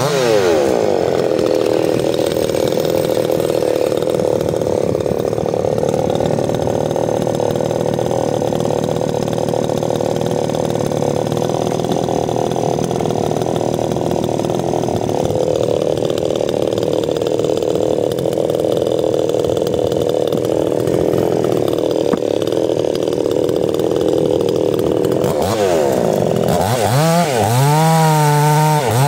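Two-stroke chainsaw cutting wood. The engine note drops as the chain bites in at the start and holds steady under load for most of the time, then near the end the saw comes free and revs high with a wavering pitch.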